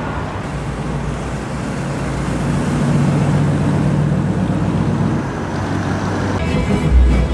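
A classic Ford Galaxie convertible's engine rumbling as the car passes at low speed, swelling about three seconds in and then fading as it drives away. A low thump near the end as music comes in.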